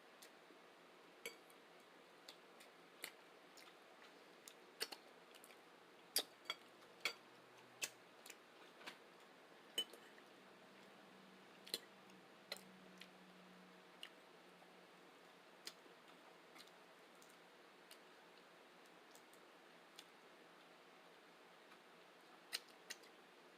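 Sparse, irregular sharp clicks and small taps from someone eating, over near silence. They come quickly at first and thin out after the first half.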